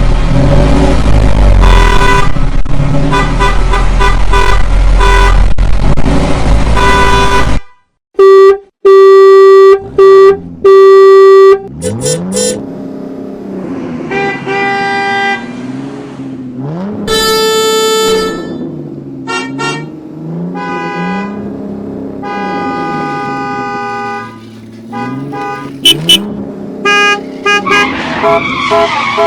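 Car engine running with a steady heavy rumble, cut off about seven seconds in. Then four short car horn honks, followed by wavering tones that rise and fall slowly, mixed with music.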